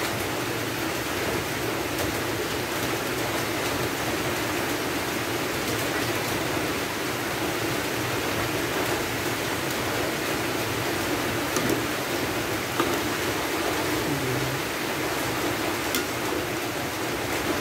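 A pot of pork steak and vegetables boiling on the stove: a steady bubbling hiss, with a faint tick or two.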